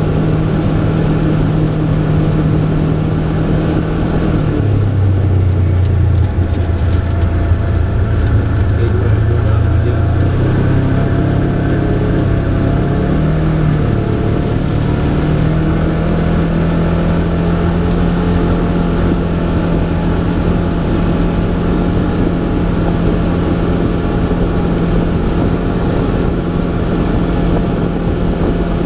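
Side-by-side UTV engine running while driving. The engine note drops about five seconds in, then climbs back up and holds steady from about the middle on.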